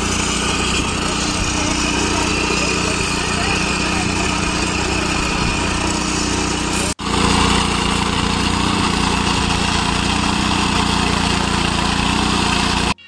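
Engine-driven abrasive-disc rail cutter running steadily as it cuts through a steel rail. The sound drops out abruptly for an instant about halfway through, then carries on.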